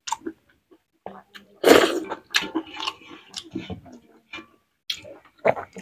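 Close-miked eating sounds of rice and boiled cabbage eaten by hand: wet smacks and chewing in short bursts, with one loud slurp about two seconds in.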